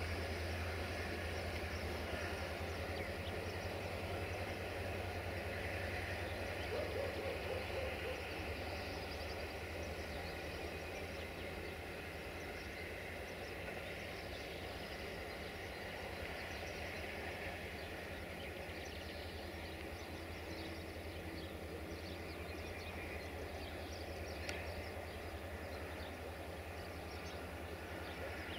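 Diesel train engine running steadily as a low, even drone that slowly eases off in level.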